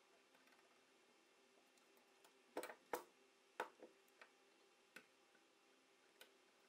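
A few sharp clicks and knocks, the loudest bunched together around the middle: a screwdriver and small metal shotgun parts being handled and set down on a wooden workbench during disassembly.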